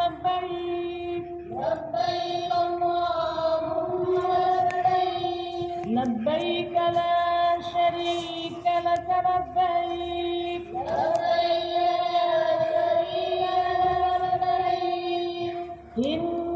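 A voice singing in long, drawn-out, chant-like phrases, each opening with a rising slide and then holding a steady note; a new phrase begins about every five seconds.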